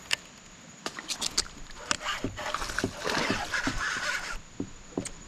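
A bass hooked on a rod from a kayak: sharp clicks and knocks of rod and reel handling, then about two seconds of rushing splash as the fish thrashes at the surface.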